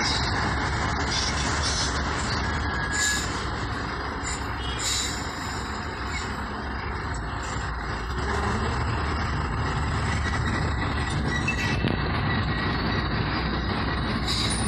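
Steady engine and road rumble of slow stop-and-go city traffic, heard from inside a car, with a couple of short hisses about three and five seconds in.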